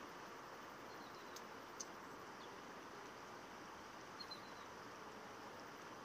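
Faint, steady rush of a flowing river, with a few brief high chirps now and then.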